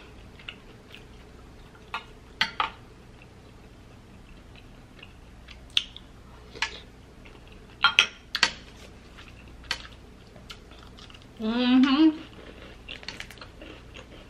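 Metal spoon clinking against glass bowls of gumbo as it is stirred and scooped: a string of sharp, separate clinks spread over the first ten seconds. About two-thirds of the way through, a short wordless voice sound from the eater rises in pitch.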